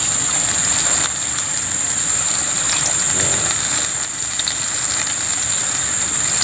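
Battered salak (snake fruit) slices deep-frying in a wok of hot oil, a loud, steady sizzle.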